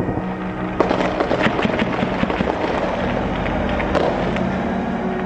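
Gunfire: a rapid, irregular run of sharp cracks and pops starting about a second in, over a steady low hum.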